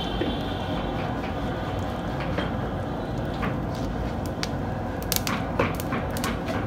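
Hot oil frying and bubbling in an aluminium pot on a gas stove, with a steady sizzle and a few sharp crackles and pops near the end.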